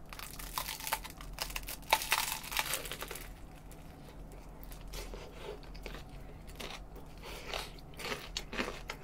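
Biting into an air-fried ciabatta chicken sandwich: the crisp crust crunches and crackles for the first three seconds or so. After that comes softer, sparser chewing with small wet mouth sounds.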